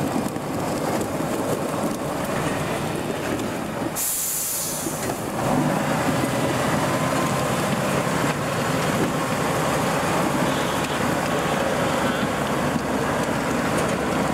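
Eight-wheel-drive off-road trial truck's diesel engine running steadily as the truck crawls past, with a brief hiss about four seconds in.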